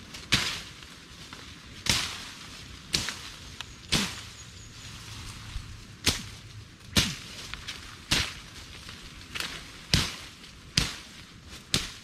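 Cutlass (machete) swung again and again, slashing through thick bush and stems, each stroke a sharp swish and cut, about one a second.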